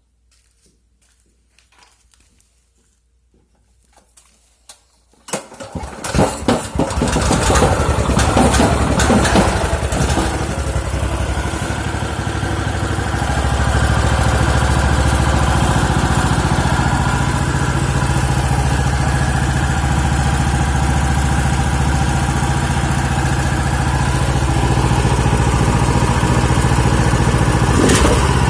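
Champion G390HK single-cylinder four-stroke engine started for the first time after a rebuild with a new crankshaft, connecting rod and piston rings. A few faint clicks come first. About five seconds in it catches, runs unevenly for a second or two, then settles into steady running.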